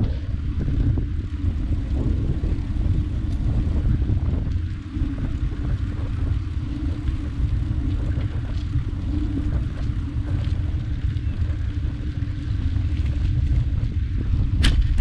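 Wind buffeting a bicycle-mounted camera's microphone over the steady low rumble of bicycle tyres rolling on a paved path, with one sharp click near the end.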